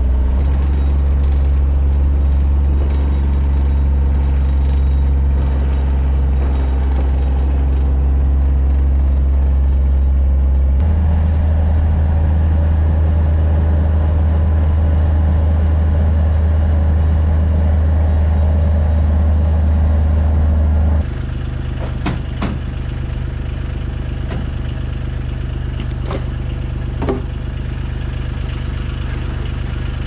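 John Deere Gator XUV 855D utility vehicle's three-cylinder diesel engine running while driving, heard from inside the cab, with the engine note shifting about a third of the way in. About two-thirds in it gives way to a quieter steady engine sound with a few sharp knocks and clatters.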